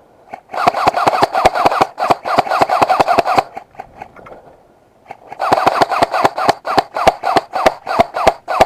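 An airsoft gun firing on full auto in two long bursts of rapid, evenly spaced shots, about ten a second, with a short pause between them.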